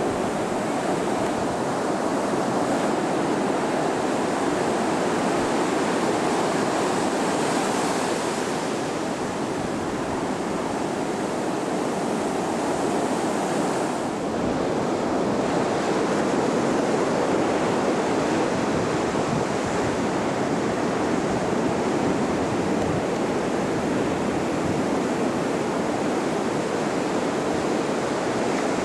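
Ocean surf breaking and washing in a steady rush, with wind on the microphone.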